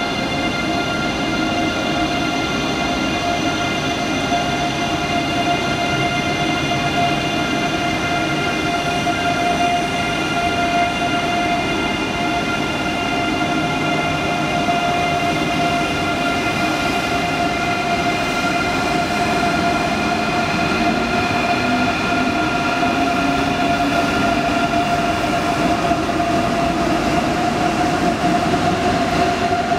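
ICE 3 high-speed electric train pulling out slowly: a steady whine of several tones from its electric traction equipment over wheel and running noise, with one tone climbing slowly in pitch through the second half as the train gathers speed.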